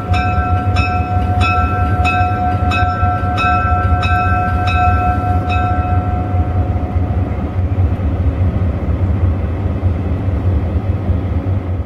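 Diesel cab-unit locomotive's engine rumbling steadily as it moves slowly into a station. Its bell rings about one and a half strokes a second for the first six seconds or so, then stops.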